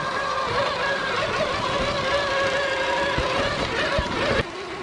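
Radio-controlled scale crawler truck's electric motor and gears whining at a steady pitch as it crawls over rocks and roots, with short knocks from the tyres and chassis. The whine cuts off sharply near the end.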